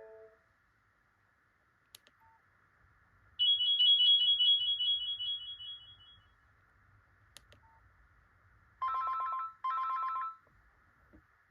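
Nokia 3109c phone ringtones. About three seconds in, a high trilling two-note tone rings for a couple of seconds and fades. Near the end come two short buzzing rings in a row, like an old telephone's double ring.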